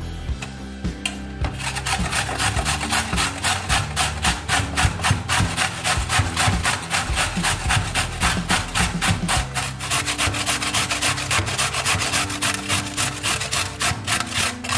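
Carrot being grated on a stainless steel box grater: a quick, even run of rasping strokes at about five a second, starting about a second and a half in.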